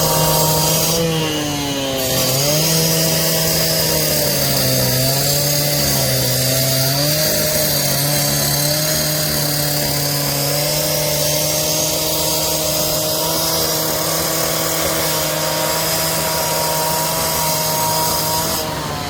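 Power saw's motor running continuously, its pitch sagging several times in the first seven seconds as it bites under load, then holding steady.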